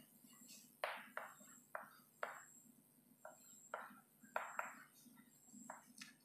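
Chalk writing on a blackboard: about ten short, faint scratches and taps, irregularly spaced, as letters are written.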